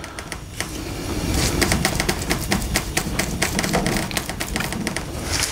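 Paintbrush scrubbing and dabbing paint into the screw heads and end grain of a wooden hive body: a rapid, irregular run of dry scratchy ticks, building from about a second in.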